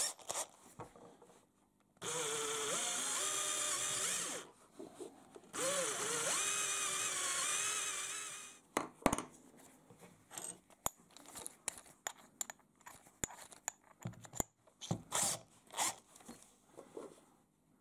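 Cordless drill running in two bursts of two to three seconds each, driving a countersink bit into a soft lead bullet weight to cut the seat for a glass bead; the motor's pitch wavers as the bit bites. Light clicks and knocks follow in the second half.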